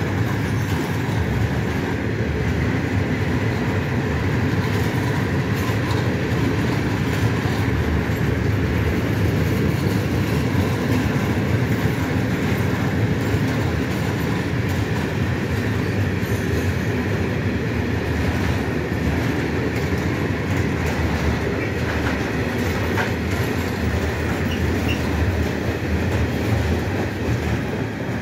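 Freight train of PKP Cargo Falns hopper wagons rolling past at close range: a steady, loud rumble of steel wheels on the rails with wagon clatter, and a faint high steady tone over it.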